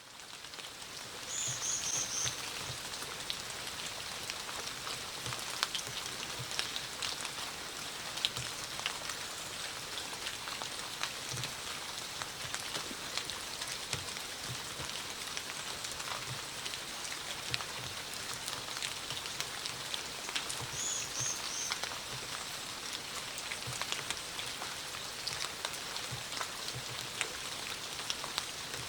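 Steady rain falling, with scattered close drops ticking and tapping. It fades in over the first second or so. A brief run of high chirps sounds twice, near the start and about two-thirds through.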